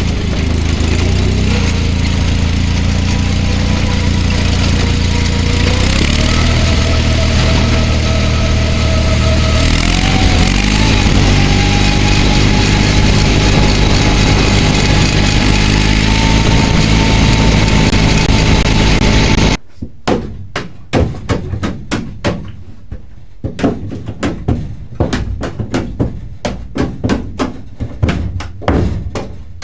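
A small vehicle's engine running steadily under way, its pitch stepping up twice as it speeds up. About two-thirds of the way through it cuts off abruptly, replaced by a quick, irregular series of knocks and taps.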